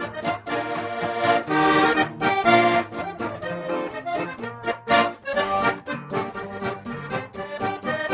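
Instrumental background music with a lively, busy rhythm.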